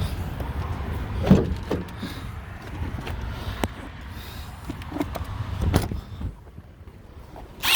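A few sharp knocks and clatter from tools being handled over a steady low rumble. A short, loud whir of a cordless drill's motor starts at the very end.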